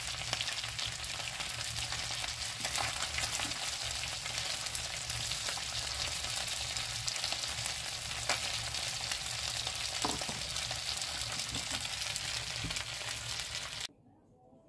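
Chicken wings sizzling in hot oil in a frying pan, with a wooden spatula now and then scraping and knocking against the pan as they are stirred. The sizzle cuts off suddenly near the end.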